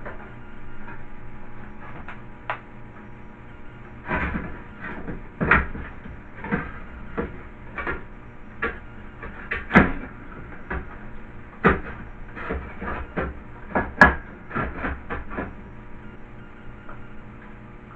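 Irregular clicks, knocks and scrapes of a hard drive being moved up a bay and fitted into the metal drive cage of a PC tower, with two sharper knocks about ten and fourteen seconds in.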